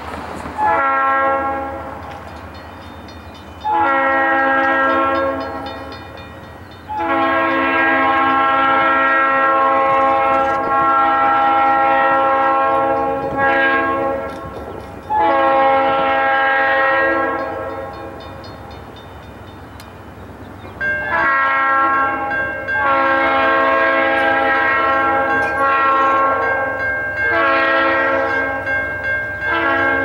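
Diesel freight locomotive's multi-chime air horn sounding a series of blasts as the train approaches, some short and some held for several seconds, the longest about six seconds, with a steady chord of several notes. The train's low rumble carries on between blasts.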